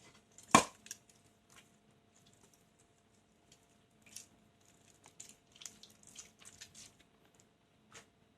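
A balloon popping with one sharp, loud bang about half a second in, followed by a few faint crackles and rustles of handling and a small click near the end.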